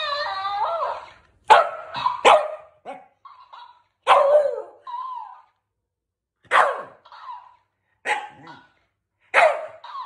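A Shiba Inu-type dog barking at a plush duck toy: short sharp barks every one to two seconds, each followed a moment later by a fainter, shorter sound. A wavering, sing-song pitched sound fills the first second.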